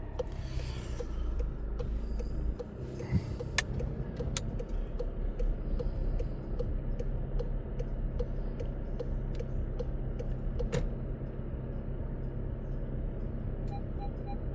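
Inside a VW Golf MK7's cabin as it reverses under park steering assist: the engine's low hum with a steady light ticking about twice a second. Near the end the parking sensors begin a fast, even beeping as an obstacle gets close.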